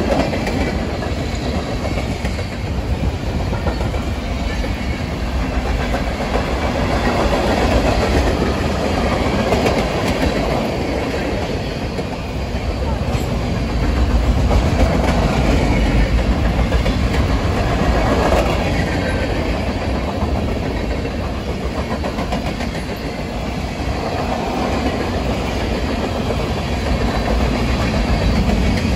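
Norfolk Southern freight train's cars (tank cars, refrigerated boxcars and centerbeam flatcars) rolling past close by: a steady rumble of steel wheels on the rails that swells and eases a little as the cars go by.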